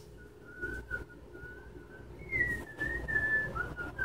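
A person whistling a meandering tune, one thin note line that wavers, steps up higher a little over two seconds in, then drifts back down.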